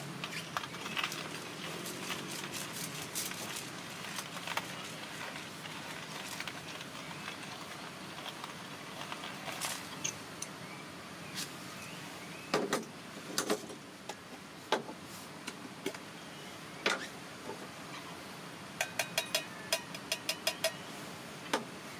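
Hand-cranked manual coffee grinder grinding beans, a steady gritty crunching. Past the middle it gives way to a few sharp knocks, then a quick run of light clicks near the end.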